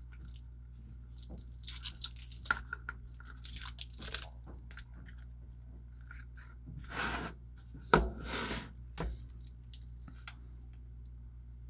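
Clear protective plastic film being peeled off a stainless steel watch bracelet and crinkled in short rustles, with two longer rustles and a sharp click about seven to eight seconds in.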